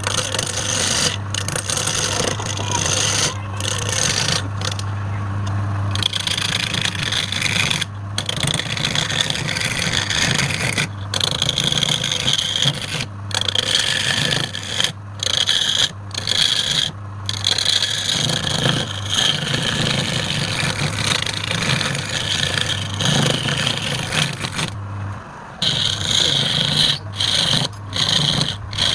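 Wood lathe running, with a tool rubbing and rasping against the spinning wood over a steady low hum; the rasping breaks off briefly several times.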